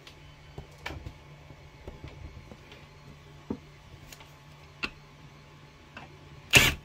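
A few faint clicks of the release lever, bolt and steel bracket being handled. Near the end comes a short loud burst as a cordless impact driver with a 5/32 Allen bit briefly drives the bolt through the bracket holes.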